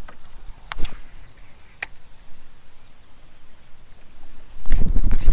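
Two sharp clicks from a baitcasting reel and rod, then, once a fish strikes the topwater bait, loud low rumbling handling noise as the rod is swept back to set the hook.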